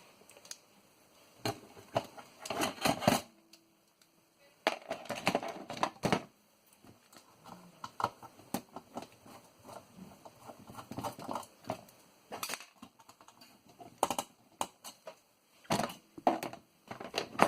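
Small metal and plastic parts of a floppy disk drive clicking, knocking and clattering as they are handled during disassembly, in irregular bursts with short pauses between.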